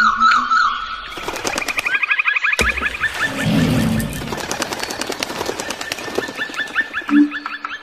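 Birds chirping in fast, repeated short rising calls, with a sharp knock about two and a half seconds in and a rustling stretch just after.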